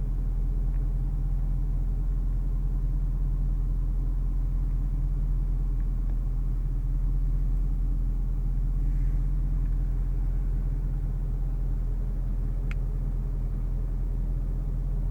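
2014 Range Rover Sport's supercharged 5.0-litre V8 running at a steady cruise, a constant low drone with road noise and no revving. A single faint click near the end.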